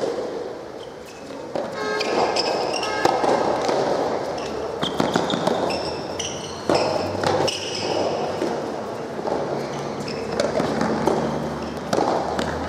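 Soft tennis rally in a large hall: repeated sharp hits of rackets on the soft rubber ball and the ball bouncing on the hard court, with short high squeaks and background voices.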